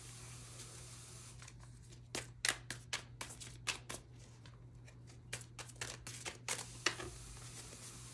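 Playing or oracle cards being shuffled and handled: an irregular run of sharp snaps and taps between about two and seven seconds in, over a faint steady hum.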